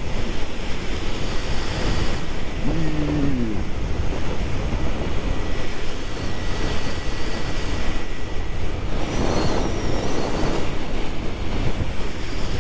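Heavy wind rush over a helmet-mounted camera as a Yamaha Fazer 150 motorcycle cruises at highway speed, with its engine running steadily beneath the wind. A brief rise and fall in pitch comes about three seconds in, and a louder swell of noise about nine seconds in.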